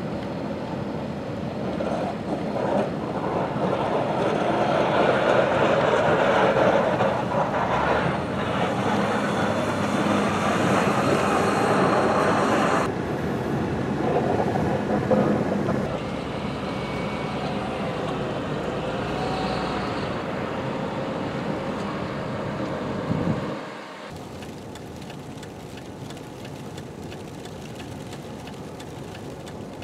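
Wheel loader with a box snow plow, its engine running as it pushes snow; the sound builds over the first dozen seconds. After a cut, the steady noise of traffic on a snow- and sleet-covered road, quieter for the last few seconds.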